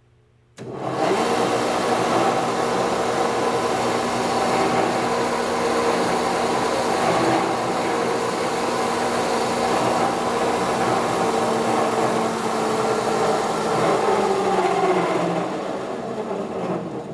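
Northfield 25-inch No. 7 planer running on its 7.5 horsepower motor, a steady machine hum with a spinning-cutterhead whir, starting abruptly about half a second in. Near the end it winds down, its pitch falling as the machine coasts to a stop.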